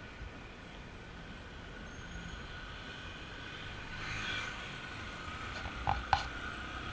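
Steady street traffic noise, swelling about four seconds in, with two short sharp sounds a quarter of a second apart near the end.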